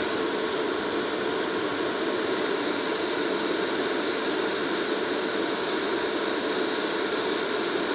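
WAP7 electric locomotive standing at the platform with its cooling blowers running: a steady, even rushing noise.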